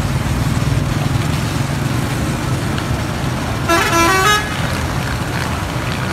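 A vehicle horn honks once, for under a second, about four seconds in, over a steady low rumble of street traffic and engines.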